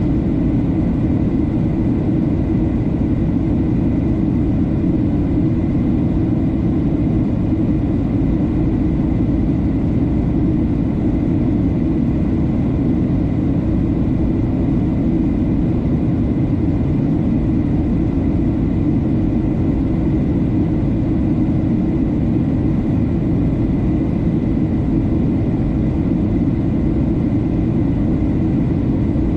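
Airliner cabin noise on descent: the deep, even roar of the jet engines and rushing air heard from inside the passenger cabin, with a faint steady high whine above it.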